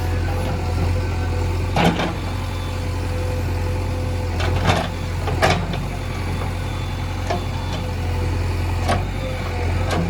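A heavy machine's diesel engine running steadily, with a handful of short, sharp knocks or clanks scattered through it.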